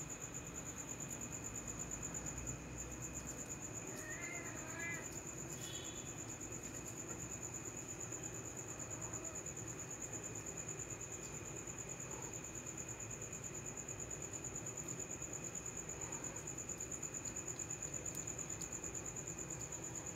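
Crickets chirping: a steady, high-pitched trill that pulses rapidly and evenly throughout.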